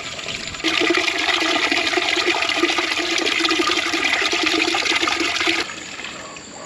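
Water from a tap pouring and splashing into a large metal cooking pot as it fills. The splashing grows loud about half a second in and falls away near the end.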